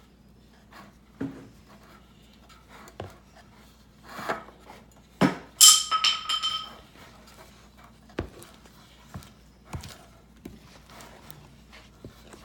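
Kitchenware being handled: scattered light knocks and taps, and one sharp clang about five seconds in that rings for over a second.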